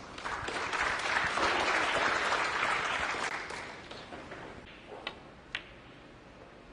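Audience applauding, swelling over the first second and dying away by about four and a half seconds; then two light clicks.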